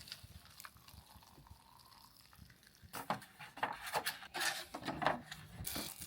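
Chopsticks and plastic food containers clicking and scraping in an irregular run of sharp knocks, starting about three seconds in, as microwaved beef is moved into a cup of ramen.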